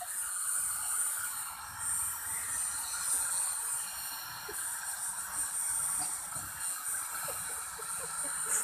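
Small hand-held hair dryer running steadily, blowing air onto a wet cat to dry it. It makes a constant rushing of air with a high whine over it.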